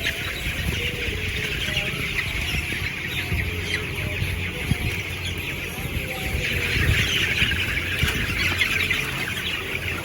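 A large flock of broiler chickens in a closed poultry house, many birds chirping and clucking at once in a dense, steady chatter, over a low rumble.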